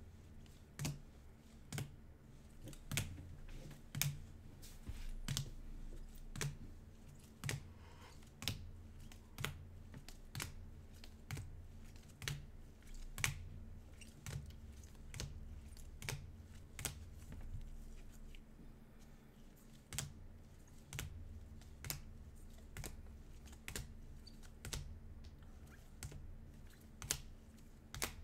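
A series of light, sharp clicks or taps, about one every second, irregularly spaced, over a faint steady low hum.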